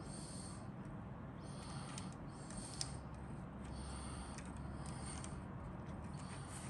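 Plastic parts sprues of a Hasegawa 1/72 model kit being handled, giving soft rubbing and scraping of plastic on plastic, with one light click about three seconds in.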